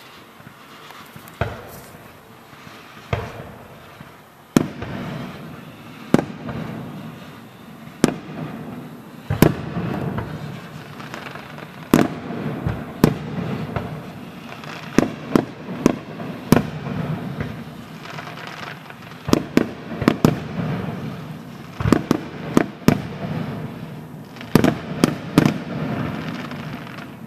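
Fireworks display: a string of sharp shell-burst bangs, some alone and some in quick clusters of two or three, about every second or two, over a continuous low rumble.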